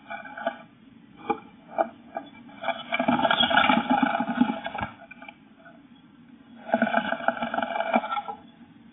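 Eurasian blue tit inside a wooden nest box: a few short knocks and scrapes from the bird on the box floor, then two bursts of rapid wing-flapping against the box, each a second or two long, about three and seven seconds in.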